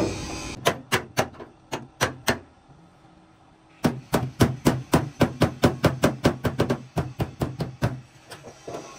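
Hand hammer beating sheet-metal truck cabin panels: a handful of separate blows, a pause of about a second and a half, then a fast, even run of about four blows a second for around four seconds, tapering to a few lighter taps near the end.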